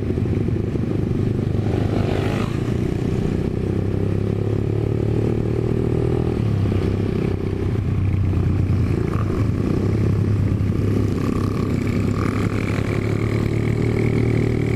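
Motorcycle engine running steadily, a constant low drone, as heard while riding.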